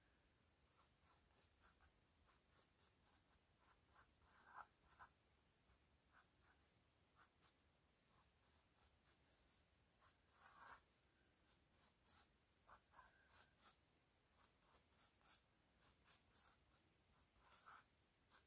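Pencil sketching on a stretched canvas: faint, irregular scratchy strokes, with a few longer ones about four, ten and seventeen seconds in.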